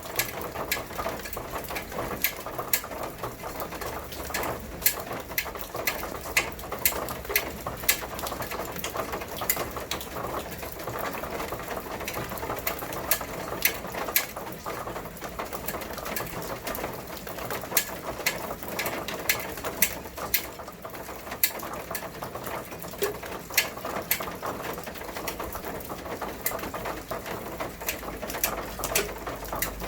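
Rain falling steadily, with many irregular sharp taps of drops striking a hard surface, several a second.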